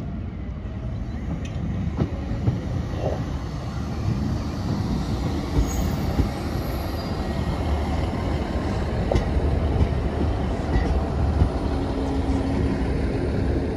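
Class 150 diesel multiple unit drawing slowly into the platform, its underfloor diesel engines running over a steady rumble of wheels on rail. A low steady hum joins in near the end.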